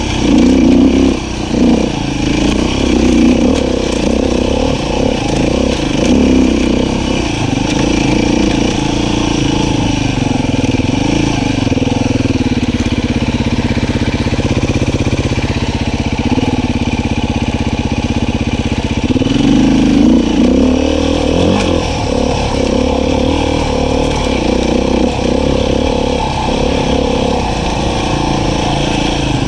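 Beta 500 RR-S dirt bike's single-cylinder four-stroke engine running on the trail, its note rising and falling with the throttle. It holds steadier and lower for several seconds around the middle, then picks up again.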